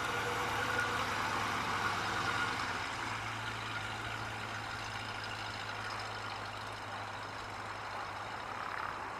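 1973 Lincoln Continental's 460 cubic inch V8 running steadily with a low, even hum.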